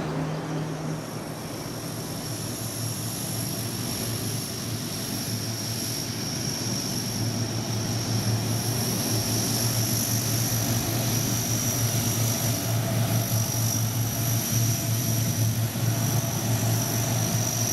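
Military aircraft engines running steadily: a low drone under a high steady whine, growing louder from about eight seconds in.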